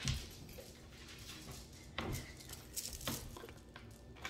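A few soft knocks and bumps of someone moving about in a room, one near the start, one about two seconds in and a couple more around three seconds in, over a faint room hum.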